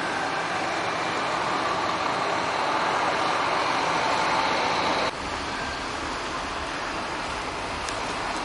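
Scania K360iB coach's rear-mounted five-cylinder diesel running as it pulls away past, the sound growing slowly until it cuts off abruptly about five seconds in. After that comes a quieter, steady diesel coach engine.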